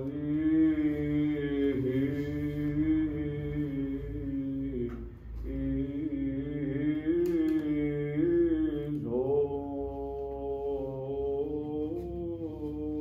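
A man's voice chanting Greek Orthodox Byzantine chant in long, held, ornamented phrases, with brief breaks about five and nine seconds in.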